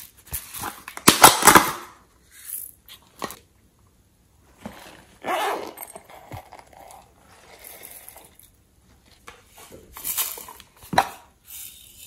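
Hands handling small plastic containers and a silicone pouch: irregular bursts of rustling, crinkling and tapping, the loudest about a second in.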